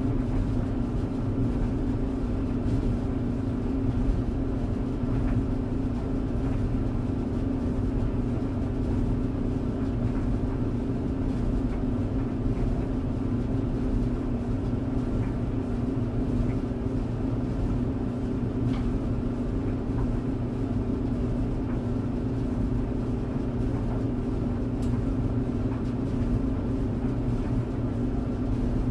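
Clothes tumble dryer running: a steady hum with a low rumble underneath and a few faint, light ticks.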